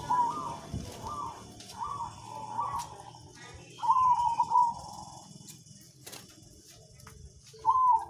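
Perkutut (zebra dove) cooing: a run of short notes in the first few seconds, a louder, longer phrase about four seconds in, and another near the end.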